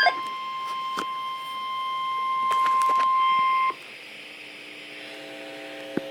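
NOAA Weather Radio alert tone on a radio receiver: a single steady beep-like tone that swells in loudness over its last couple of seconds and cuts off abruptly about three and a half seconds in. It marks the start of an emergency alert, here a tornado watch, and is followed by radio hiss with faint hum and a few clicks.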